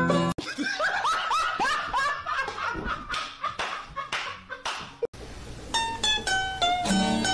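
A man laughing hard in a quick run of rising "ha" sounds, several a second. About five seconds in it cuts off and plucked-string background music comes in.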